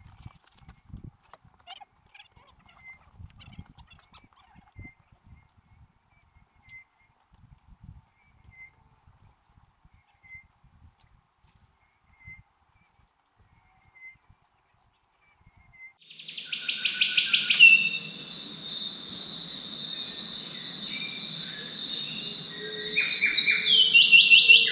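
Tropical forest ambience: sparse high insect ticks and a faint chirp repeating about every second, then, about two-thirds of the way in, a sudden louder bed of steady insect buzzing with birds calling over it in quick trills and falling notes.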